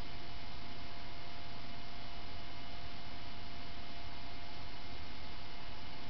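Dell Optiplex GX280 CPU fan running fast: a steady whoosh of air with a faint high whine. It is a variable-speed fan, which the owner says is supposed to speed up like this.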